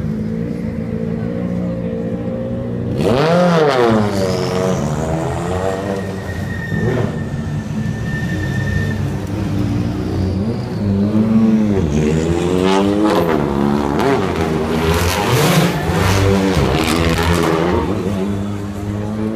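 Rally car engines on a street stage: steady running at first, then hard revving in bursts, the pitch sweeping up and down as the cars accelerate through a tight turn, with sharp cracks among the revs.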